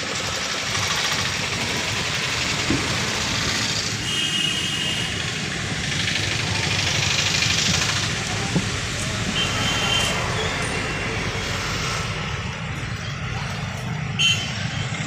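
Steady vehicle noise as a small car creeps slowly around traffic cones at low engine revs, with faint voices in the background. There are a few short high-pitched sounds, and a brief louder sound near the end.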